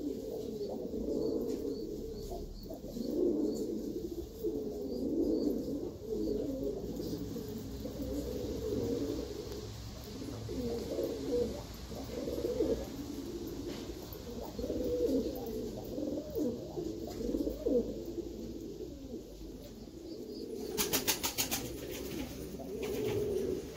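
Domestic pigeons cooing continuously in overlapping, warbling calls. Near the end there is a quick run of sharp clicks.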